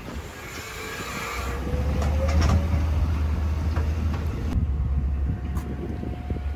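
Heavy diesel garbage truck engine running close by, getting louder over the first two seconds as the front-loader pulls away, with a faint rising whine.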